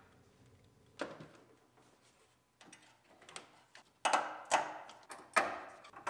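Sharp metallic clicks and light knocks of tools and parts being handled in a truck's engine bay: a few faint ones in the first half, then louder ones about two a second from about four seconds in.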